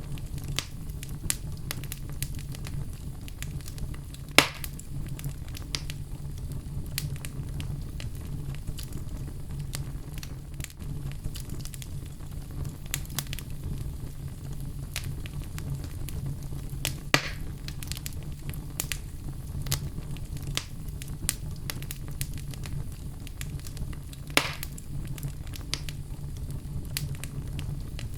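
Fire in a fireplace crackling: frequent small sharp snaps over a steady low rumble, with three louder pops at about 4, 17 and 24 seconds in.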